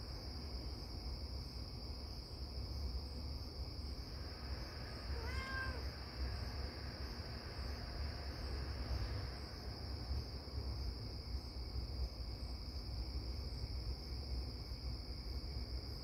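Crickets chirring in a steady high-pitched chorus over a low rumble, with a single short cat meow, rising then falling in pitch, about five seconds in.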